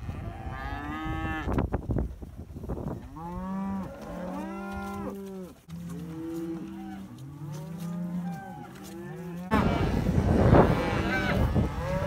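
A herd of Angus cattle mooing: many long, overlapping calls at different pitches, one after another. The sound turns louder and rougher about three-quarters of the way through, with more moos over it.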